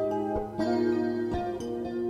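Guitar music: plucked notes and chords ringing on, with new notes picked a few times.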